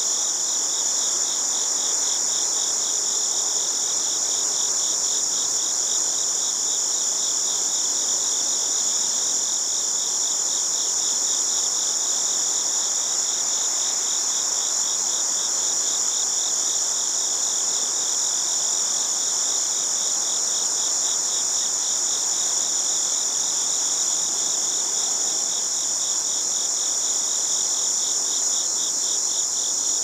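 Chorus of singing insects: a steady, high, shrill tone over a fast-pulsing lower trill, both unbroken.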